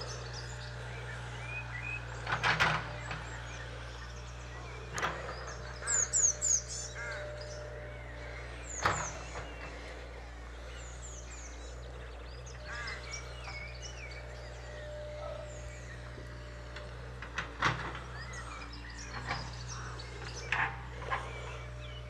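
Scattered short animal calls over a steady low hum: quick, high falling chirps and a few louder short cries about two and a half, nine and eighteen seconds in.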